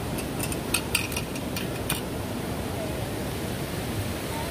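Steady rushing of a forest stream, with a quick run of light clicks in the first two seconds.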